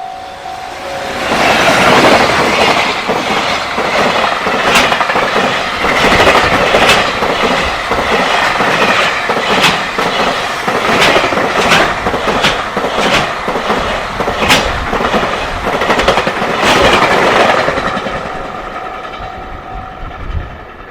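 Freight train passing close at speed, its wheels clacking over rail joints with a steady run of sharp clicks. A level crossing alarm rings with a steady two-tone sound at the start, is drowned out as the train arrives about a second in, and is heard again as the train fades near the end.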